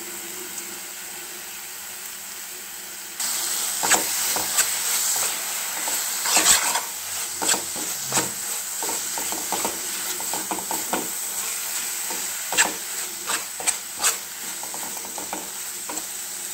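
Carrot halwa sizzling in freshly added ghee in a non-stick pan while a spatula stirs it, scraping and tapping against the pan in irregular strokes. The sizzle gets louder about three seconds in.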